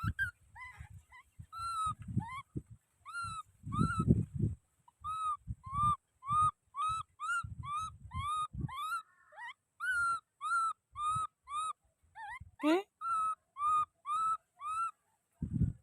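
Baby monkey crying with a long series of short, high, arched calls, about two a second, with a sharper rising squeal about three-quarters of the way through. Bouts of low rustling and rumbling run under the calls in the first half.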